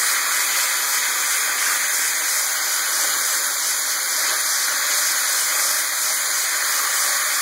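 Vegetables sizzling steadily in hot olive oil and beef juices in a cast-iron skillet.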